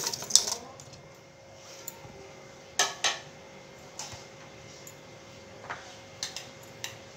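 Whole spices tipped from a plate into a steel pot, the pour ending about half a second in. Then two sharp clinks about three seconds in and a few lighter taps of dishware against the steel pot.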